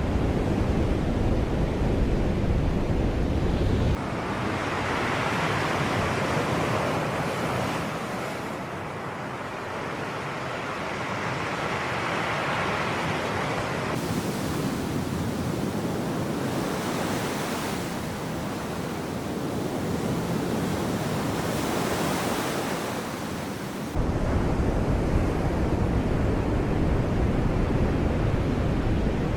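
Sea surf washing onto the shore, swelling and receding over several seconds at a time. In the first few seconds and again for the last few, a heavy low rumble of wind on the microphone lies under it; both times the change is sudden.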